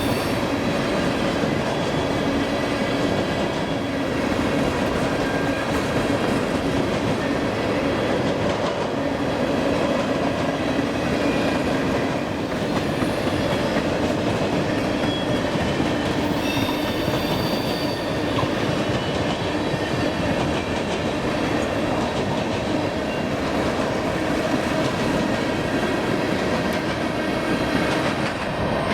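Freight train rolling past, its wheels clattering steadily over the track, with some faint wheel squeal.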